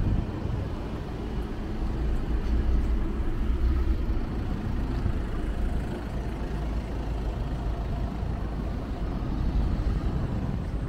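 Steady low engine rumble of motor traffic, without letup.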